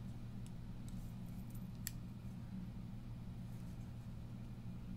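A low steady hum under a few faint clicks from a Revo Warden assisted-opening folding knife being handled, with one sharper click about two seconds in as the blade is folded shut.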